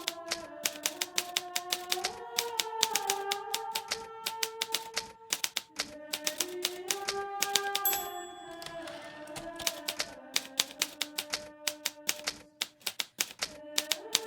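Hermes Baby portable typewriter typing in quick runs of sharp key strikes, several a second, thinning out briefly near the end. Soft music with slow held chords plays underneath.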